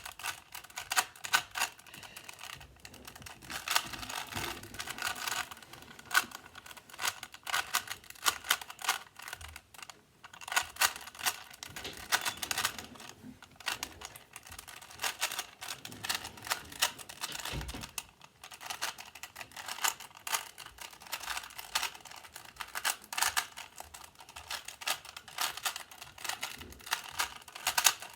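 A Rubik's-brand 3x3 cube being turned fast in a speedsolve: dense, irregular clicking and clacking of the plastic layers, with a few short pauses.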